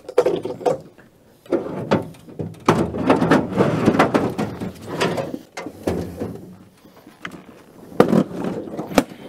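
Checker-plate aluminium box being handled and lifted out of an aluminium boat: an irregular run of metallic knocks, clunks and scrapes, with two sharp clicks near the end.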